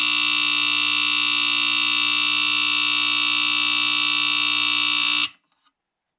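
Smoke alarm test on a 1986 FireX FX1020 hardwired smoke alarm: its Kobayashi CLB26 AC vibratory horn sounds one continuous high-pitched alarm tone, which cuts off suddenly about five seconds in.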